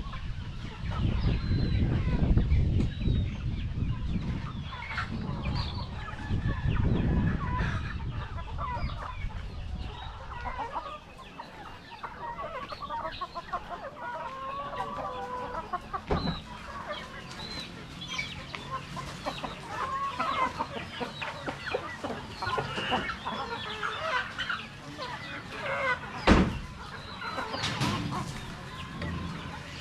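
A flock of Rhode Island Red chickens clucking and calling, many short overlapping calls throughout. A low rumble fills the first ten seconds or so, and a sharp thump sounds near the end.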